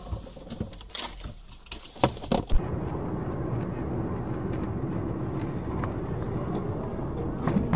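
A few sharp knocks and clicks in the first two and a half seconds, the loudest just after two seconds in. Then the steady road and engine noise of a car driving, heard from inside the car.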